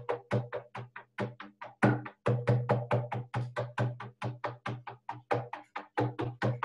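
Large rawhide frame drum struck with a beater in a fast, even beat of about five strokes a second, each stroke a low booming tone: the steady drumming that carries a shamanic journey.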